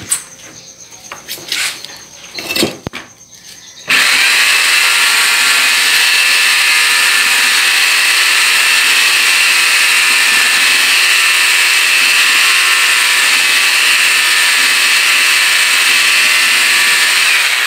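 A few knocks and clatters, then about four seconds in a corded power tool fitted with a paddle stirrer starts up and runs at a steady speed, churning skim coat and water in a plastic bucket.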